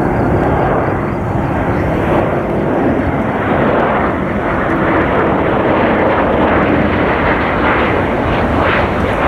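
Loud, steady jet noise from the twin turbofan engines of an American Airlines Boeing 767 airliner.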